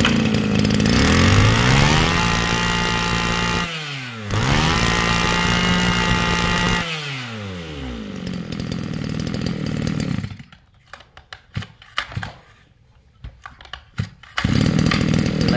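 Tanaka two-stroke brush-cutter engine running, revved up high twice and let back down to idle, then it stops about ten seconds in. After a few seconds of clicks, it is pull-started again near the end and runs.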